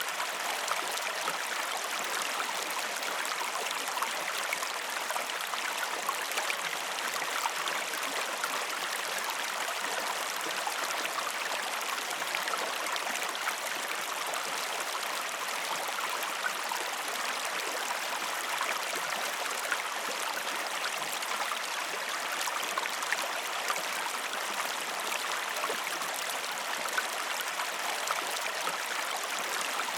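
Stream water flowing and babbling steadily, an even rushing with small splashes and gurgles throughout.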